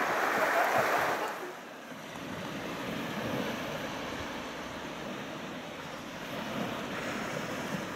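Sea waves washing onto the beach, louder for the first second or so, then a steady surf wash, with some wind on the microphone.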